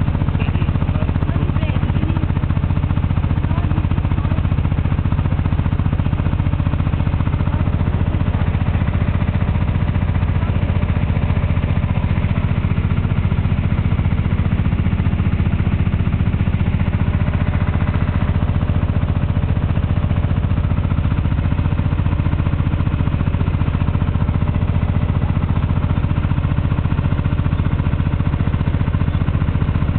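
Engine of a small canopied river boat running steadily, heard from on board: a low, even drone at constant speed.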